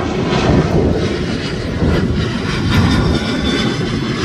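Jet airliner engines running, a loud steady noise heavy in the low end.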